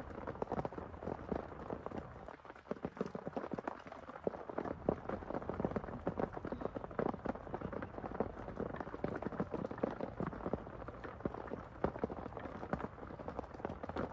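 Heavy rain falling, a dense, irregular patter of drops striking a surface close by.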